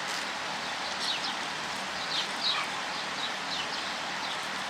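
Steady sizzle of whole spices frying in hot oil in a cooking pot, with small birds chirping several times over it.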